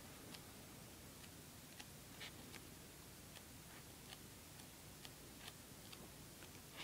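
Faint, irregular soft ticks of paperback book pages flicking off the thumb as the book is flipped through quickly, about two a second, over low room hiss.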